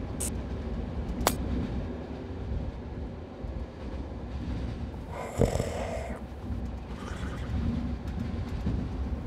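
Steady low rumble of a moving train carriage, with a heavy man snoring over it; the loudest snore comes about five seconds in. A single sharp click sounds about a second in.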